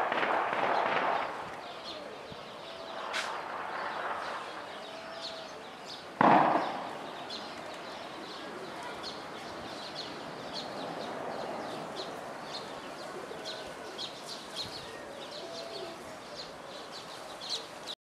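Birds calling: a steady run of short high chirps from small birds, with a few short low coos from doves. A burst of noise in the first second, and one sudden loud bang or thump about six seconds in, the loudest sound of all.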